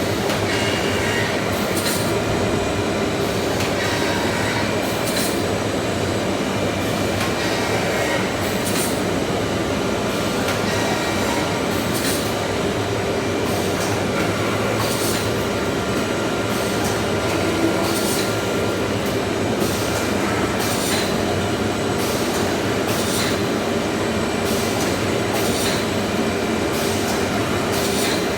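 CNC multiple boring machine running: a steady mechanical hum with a few held tones, broken by short hissing bursts every second or two.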